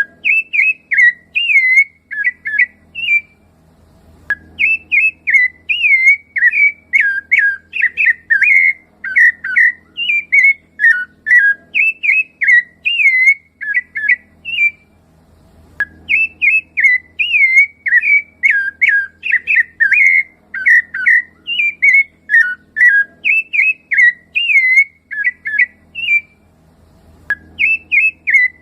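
Rufous-bellied thrush (sabiá-laranjeira) singing: a fast run of clear, fluty whistled notes that swoop up and down, delivered in long bouts. Short pauses break the song about four seconds in, about fifteen seconds in, and again near the end.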